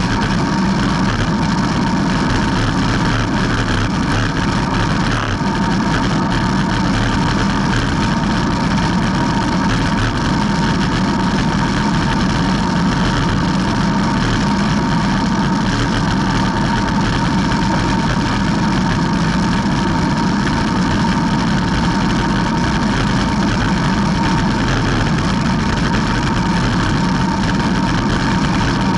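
Steady wind rush and tyre noise from a road bike coasting fast downhill on asphalt, with wind buffeting the bike-mounted camera's microphone. Under the rush sits a constant low hum and a thin steady whine.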